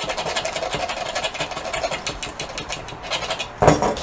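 A metal key scraped quickly back and forth over KolorBond AquaTek water-based paint on uPVC, a fast gritty rasping as the paint chips away easily. A brief louder sound comes near the end.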